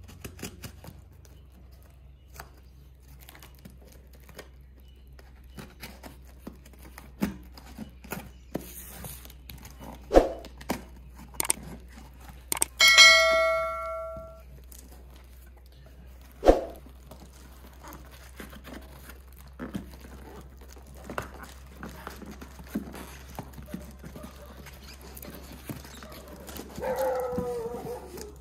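A product box and its packaging being opened and handled: scattered clicks and taps, with a louder knock about ten seconds in and another around sixteen seconds. About thirteen seconds in comes a ringing ding lasting about a second and a half. Near the end a dog whines, over a steady low hum.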